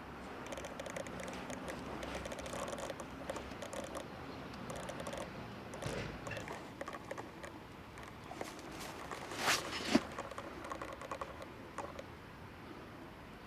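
Light, irregular ticking and pattering, typical of a Shiba Inu puppy's claws on a hard floor as it moves about, with one brief louder rush of noise about two-thirds of the way through.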